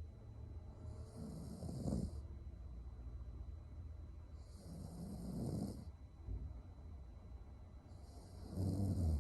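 A young woman snoring in her sleep: three snores about three and a half seconds apart, the last one the loudest.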